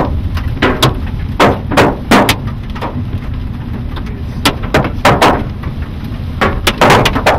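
Large hailstones hitting the van's body and cracked windshield, heard from inside the cab: irregular sharp bangs, sometimes two or three close together, over a steady low rumble of road and wind noise.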